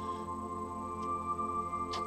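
Soft ambient background music of long sustained tones, with a faint click about a second in and another near the end.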